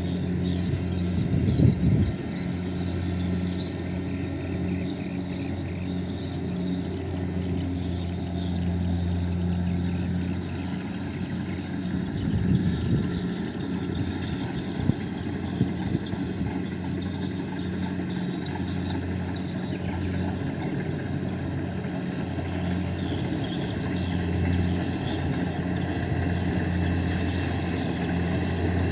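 Rice combine harvester's engine running steadily under load, a continuous low drone, with a couple of brief knocks about two seconds in and again around twelve seconds in.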